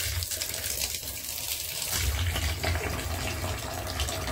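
Tap water pouring steadily into a plastic basin of wet laundry being rinsed, splashing onto the clothes and basin.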